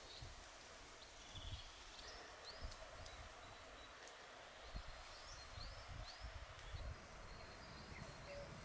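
Small birds singing faintly, short upswept whistled notes repeating about once a second, over a low rumble.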